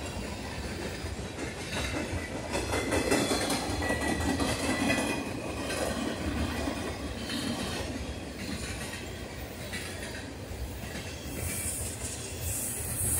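Freight cars of a long train rolling past: steel wheels clattering over the rail joints over a steady rumble.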